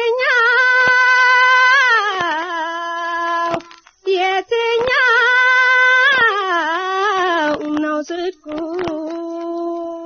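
A woman singing long, wavering held notes that bend and slide between pitches, with a short break about four seconds in and a lower held note near the end. Faint clicks sound behind the voice.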